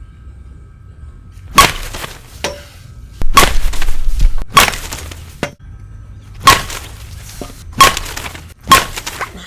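Slowpitch softball bats hitting Classic M softballs, six sharp cracks each with a brief ring, spaced one to two seconds apart.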